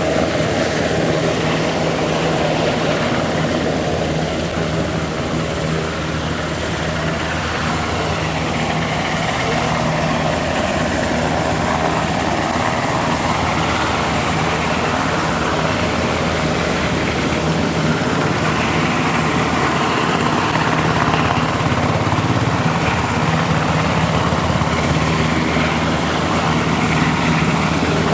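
UH-60J rescue helicopter hovering overhead for a hoist lift; its rotor and turbine engines make a steady drone.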